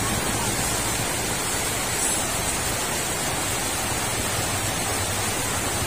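Steady, even rushing noise with no distinct events, like rain or running water.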